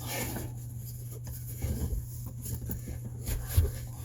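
Scraping, rubbing and light knocking of an object being shifted and tilted in a tight wooden compartment, with a sharper knock about three and a half seconds in, under a steady low hum.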